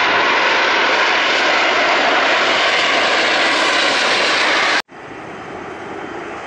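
Loud, steady jet engine noise from an Embraer ERJ-145-family regional jet rolling along the runway, a broad rush. About five seconds in it cuts off abruptly, leaving fainter jet noise.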